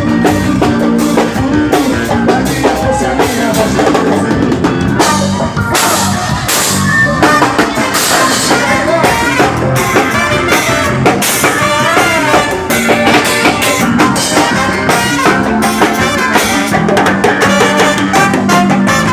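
Forró music with a drum kit playing a steady groove, running without a break.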